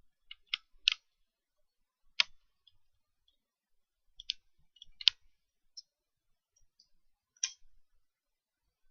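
Irregular sharp clicks and taps from handling a plastic toy and its packaging, about eight in all: a quick run of three, then single clicks spread out, the loudest about two and five seconds in.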